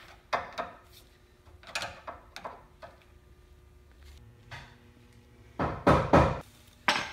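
Scattered knocks and clunks of hand work, with a louder cluster of heavy thuds about six seconds in.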